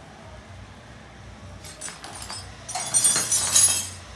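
Small metal parts and a hand tool clinking and rattling as they are handled. A few light clicks come about halfway through, and a louder run of jingling clinks lasts about a second near the end.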